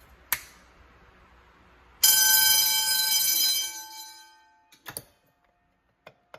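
Fire alarm bell ringing loudly for about a second and a half, then dying away. A single click comes before it and a few short clicks after.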